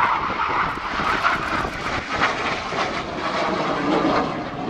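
A BAE Hawk jet trainer's Adour turbofan passing overhead in a display. It is a broad jet noise that is loudest at the start, then wavers as the aircraft moves off, with wind buffeting the microphone.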